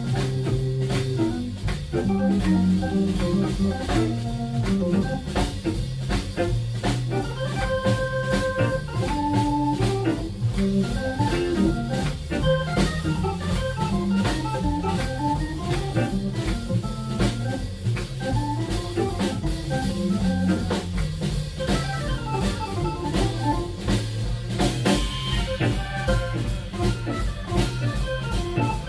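Hammond B3 organ playing a melodic line with held chords and a bass line, over a drum kit keeping a steady shuffle groove with busy cymbals.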